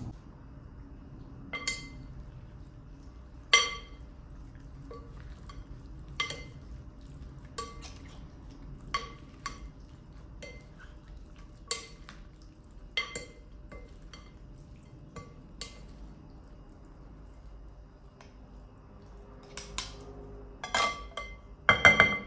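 Salad servers tossing a chopped vegetable salad in a glass bowl: irregular clinks as they strike the bowl, each ringing briefly, with a louder flurry of knocks near the end.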